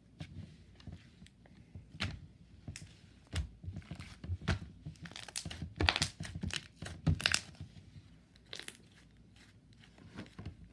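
Slime being squished and stretched by hand, giving irregular wet crackles and pops that come thickest around the middle.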